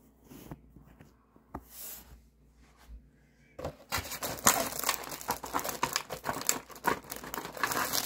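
Plastic dog-treat bag crinkling and rustling as it is handled, beginning about three and a half seconds in after a few soft rustles.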